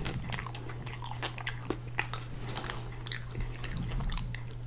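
Close-up chewing of a mouthful of animal-style fries with creamy sauce and caramelized onions: many short, irregular mouth clicks and smacks. A steady low hum runs underneath.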